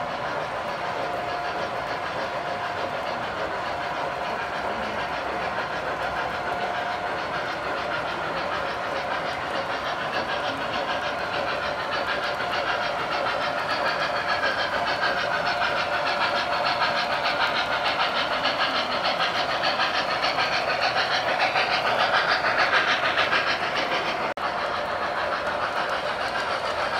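O gauge model steam locomotive running on three-rail track: a steady rolling rattle of wheels on the rails with steam sound-system hiss, growing louder as it approaches and loudest about 22 seconds in.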